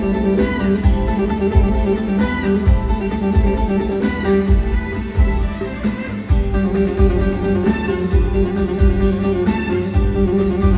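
A live band playing an instrumental passage of a Turkish pop song, without vocals: plucked string instruments over a steady drum beat.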